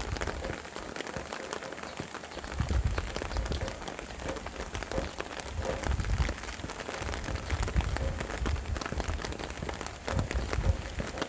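Rain falling steadily, with many close individual drops pattering, and gusts of wind rumbling low now and then, rising again near the end.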